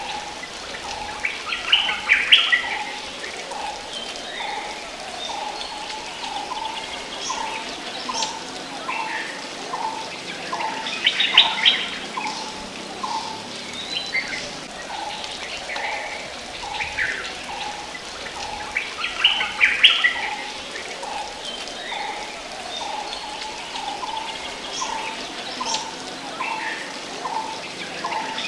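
Birds calling. One repeats a short, low, down-slurred note about twice a second throughout, and a brighter burst of chattering calls comes roughly every nine seconds, at about two, eleven and twenty seconds in and again at the end.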